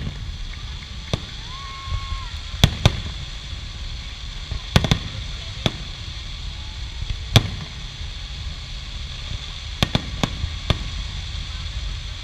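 Fireworks display: aerial shells bursting with sharp bangs at irregular intervals, about ten in twelve seconds, some in quick pairs, over a steady low rumble.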